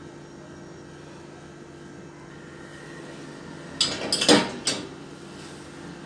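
Steady low hum, then about four seconds in a quick cluster of metallic clanks as a stainless-steel pot is set down on a dishwasher's wire rack.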